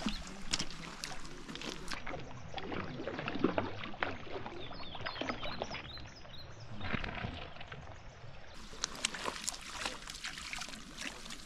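Hooked trout splashing at the water's surface as it is played to the bank and scooped into a landing net, with water sloshing and many small sharp clicks and knocks.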